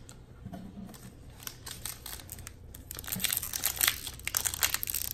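A trading-card booster pack's wrapper being torn open and crinkled by hand, soft at first and growing into loud, dense crackling from a little past halfway.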